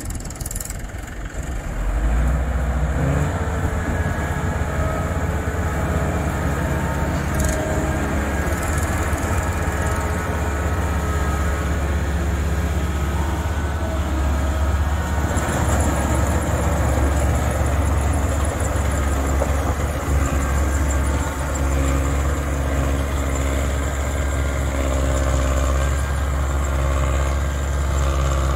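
Vishal Garuda combine harvester running steadily as it cuts and threshes rice: a deep, continuous engine hum with the whir of the machinery above it. The low hum swells about two seconds in.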